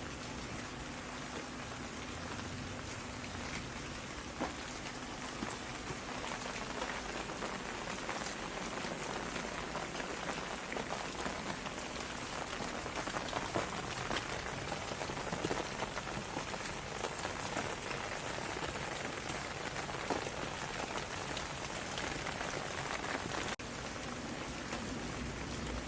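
Steady rain falling, with a dense spread of individual drop hits on a surface.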